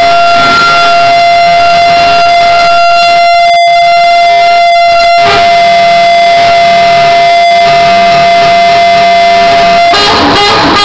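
Truck air horn held in one long, loud, steady note, stopping about a second before the end.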